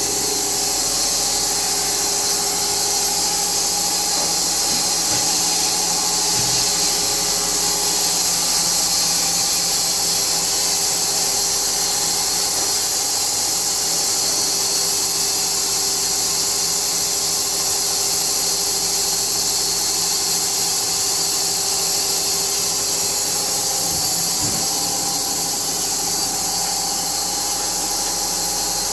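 Automatic sawmill machinery running steadily: a loud, even hiss with a constant machine hum under it.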